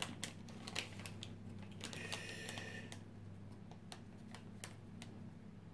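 Scattered light clicks and taps of small hardware being handled, here a Xeon processor in its packaging, with a brief higher-pitched rustle about two seconds in, over a steady low hum.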